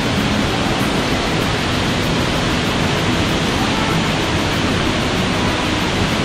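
Savica waterfall pouring into its plunge pool: a steady, even rush of falling water.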